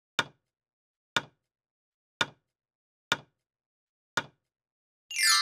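Countdown-timer sound effect: five short ticks, about one a second. A bright chime starts near the end, signalling that time is up.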